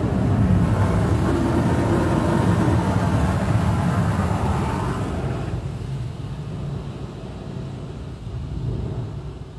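Automatic gantry car wash machine working over the car, heard from inside the cabin: a loud rushing noise over a low mechanical rumble. The rushing stops abruptly about five seconds in, leaving the rumble, which fades slowly.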